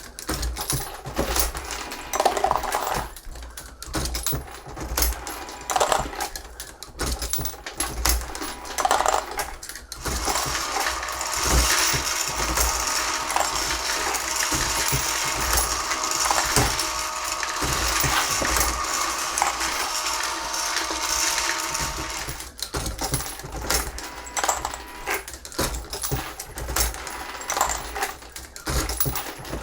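Hornady Lock-N-Load AP progressive reloading press being cycled to load .223 cartridges: repeated metallic clacks and the clink of brass cases and bullets feeding and finished rounds dropping. From about ten seconds in until about twenty-two seconds, a feeder motor runs steadily under the clatter.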